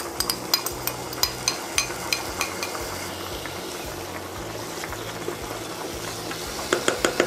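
Serrano ham and crushed tomato sizzling in olive oil in a frying pan. For the first couple of seconds a metal spoon clinks against a bowl about three times a second as the tomato is scraped in. Near the end a wooden spatula stirring the pan gives a few quick knocks.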